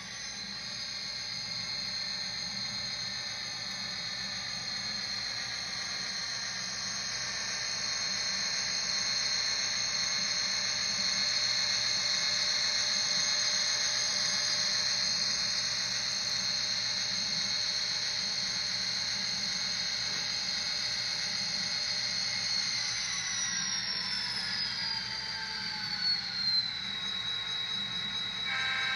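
HO-scale BNSF SD40 model diesel locomotive running with a steady high whine over a low engine drone. About 23 seconds in, the whine falls in pitch as the locomotive slows and then holds lower.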